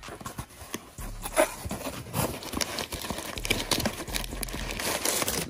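Cardboard shipping box being opened by hand, with crumpled newspaper packing paper rustling and the box flaps scraping and tapping in a quick, irregular run of sounds.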